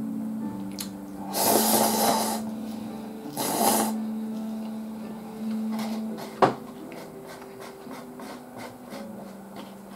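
A person slurping instant cup ramen noodles, two loud slurps about one and a half and three and a half seconds in, then a sharp click about six and a half seconds in. Quiet background music with a steady low note runs underneath.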